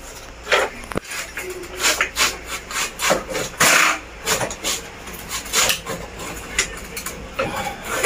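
Indoor unit of a wall-mounted split air conditioner being lifted and pulled off its wall mounting plate: irregular scraping and rubbing of the casing against the bracket, with a few knocks. The loudest scrape comes a little under four seconds in.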